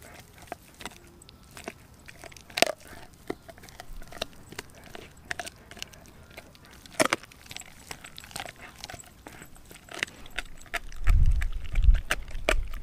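A Doberman gnawing a raw frozen pig's foot: irregular sharp cracks and crunches of teeth on bone and frozen meat, with two louder crunches about two and a half and seven seconds in. From about ten and a half seconds a low rumble comes in and becomes the loudest sound.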